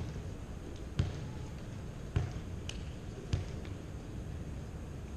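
A volleyball bounced on a hardwood gym floor about once a second, a player dribbling it before serving.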